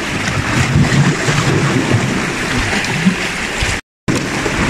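Sea waves washing against shoreline rocks, with wind buffeting the microphone. The sound drops out to silence for a moment near the end.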